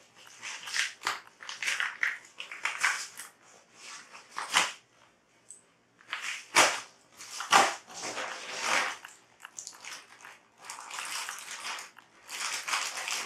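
A mailed package being torn open by hand: a string of short ripping and crinkling sounds with brief pauses between them.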